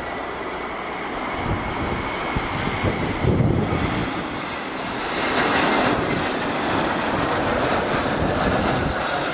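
Airbus A321 jet engines running on landing approach, a steady rushing noise with a high whine, getting louder about halfway through as the airliner comes closer.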